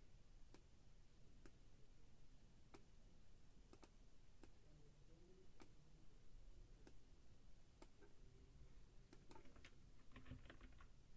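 Near silence with faint clicks scattered irregularly, about one a second, then a quick run of computer keyboard keystrokes near the end.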